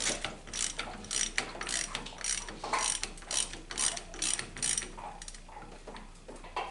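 Ratchet wrench clicking as it turns a 1¼-inch extended socket to unscrew the already-loosened C valve cartridge from a Meyer E-47 snowplow pump: quick clicks two or three times a second, dying away about five seconds in.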